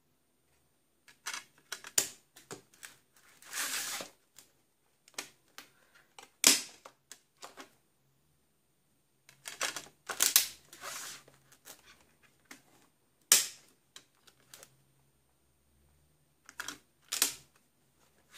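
Plastic multi-disc DVD case being handled: irregular sharp clicks and taps of hard plastic disc trays and discs, with short scraping rustles, coming in clusters separated by pauses.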